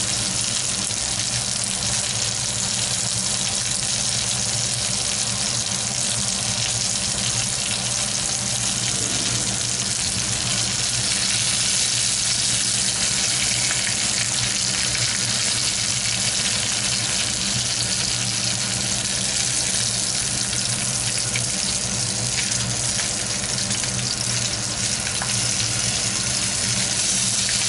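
Hamburger patties and crumbled ground beef frying in an oiled pan: a steady, loud sizzle, over what the cook suspects is too high a heat.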